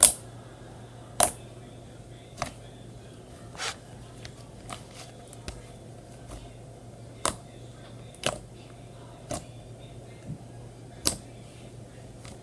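Slime being played with: sharp popping clicks at about one a second, unevenly spaced, over a steady low hum.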